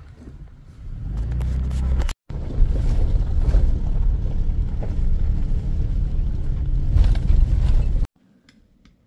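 A vehicle driving over a rough dirt road, heard from inside: a loud, steady low drone of engine and tyre noise. It breaks briefly about two seconds in and cuts off suddenly near the end.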